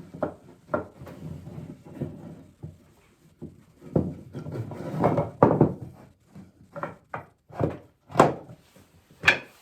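Walnut rocking-chair parts being handled on the bench: a string of irregular wooden knocks and thunks as pieces are turned over and set down, a few louder knocks in the second half.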